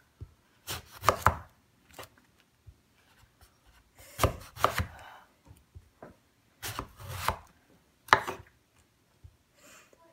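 Kitchen knife slicing through an eggplant and knocking on a wooden cutting board, in short clusters of cuts a couple of seconds apart.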